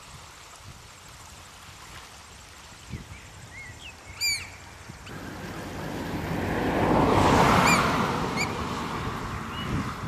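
A wave of surf washing over shore rocks, swelling and easing off, with sharp piping calls of variable oystercatchers: one loud call about four seconds in and two short ones near the end, plus a few faint rising peeps.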